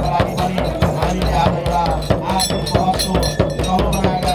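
Large frame drum beaten with a stick in a quick, steady rhythm, with hand cymbals clashing along, accompanying a Nepali folk dance.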